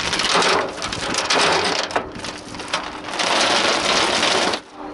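New 10 mm galvanised short-link anchor chain being hauled hand over hand off a pile and over a metal gunwale, its links rattling and clattering in several surges. The rattle stops suddenly near the end.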